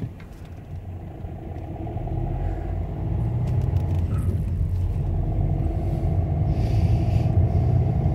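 Car engine and road noise heard from inside the cabin as the car pulls away from a standstill and accelerates, growing louder over the first three seconds, then running steadily.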